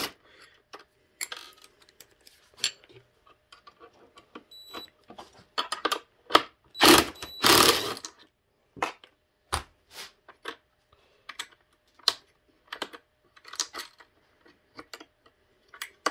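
DeWalt 20V Max cordless impact driver running in a few short bursts about halfway through, backing out steel radius rod bolts on a skateboard truck, among the clicks and clinks of a wrench and loose metal hardware.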